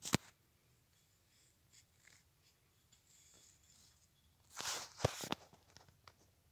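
Faint handling noise: a sharp click at the very start, then, about four and a half seconds in, a brief rubbing scrape and another sharp click.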